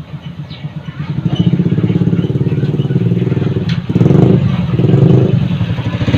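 A motorcycle engine running at idle with a steady, even note, swelling louder twice about four and five seconds in. A single sharp click just before the first swell.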